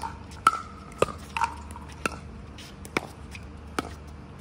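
Pickleball rally: hard paddles striking a plastic pickleball, with its bounces on the hard court, as a run of sharp hollow pocks, about one every half second to one second, several with a short ringing tone.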